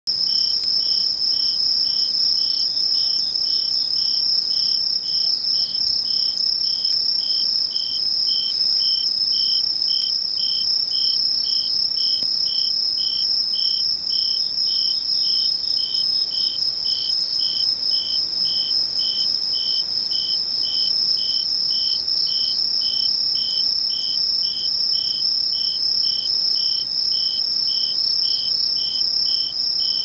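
Insects calling in chorus: one keeps up a steady high trill while another, a little lower in pitch, chirps in an even rhythm of about one and a half chirps a second.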